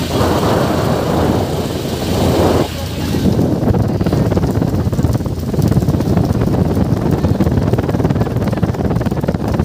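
Motorboat running steadily, with wind buffeting the microphone. A louder rushing noise over it cuts off suddenly about two and a half seconds in.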